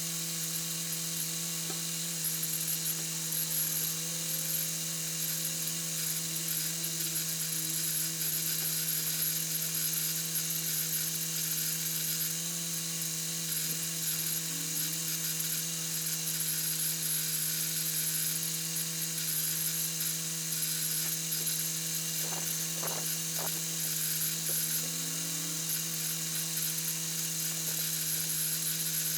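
Homemade air compressor's motor running steadily: a constant hum over an even hiss.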